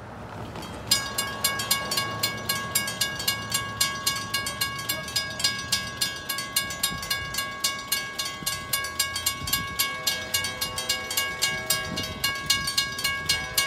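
Railroad grade-crossing warning bell ringing steadily at about three strikes a second, starting about a second in: the crossing signals have activated for an approaching train.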